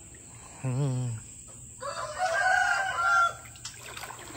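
Rooster crowing once, a drawn-out call in several parts starting about two seconds in and lasting about a second and a half.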